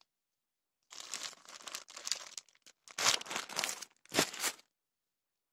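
Cross-stitch kit packaging crinkling and rustling as it is handled, in a run of bursts that starts about a second in and stops about four and a half seconds in.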